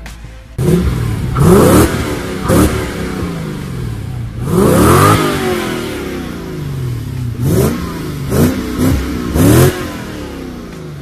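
Toyota Soarer 4.0 V8's 1UZ-FE engine revved in a series of quick throttle blips from idle, about seven in all, with one longer rev near the middle; each rises in pitch and drops back down.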